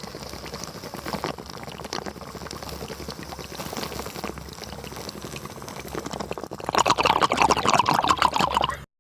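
Liquid bubbling in a quick crackle of small pops, growing much louder and denser about seven seconds in, then cutting off abruptly.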